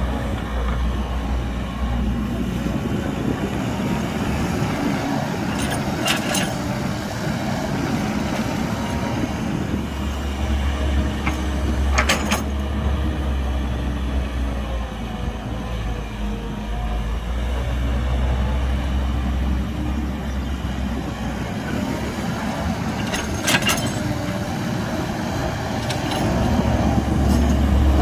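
Excavator's diesel engine working under load as it digs and loads dirt, its low drone swelling and easing in long cycles. Three sharp metallic clanks are heard, about six seconds in, about twelve seconds in and near the end.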